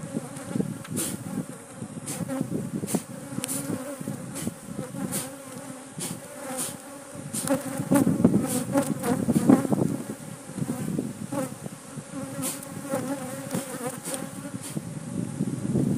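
A mass of honeybees buzzing around an opened hive, the hum swelling and fading as bees fly close past, with frequent sharp clicks. The colony is agitated and defensive, disturbed by the hive being opened.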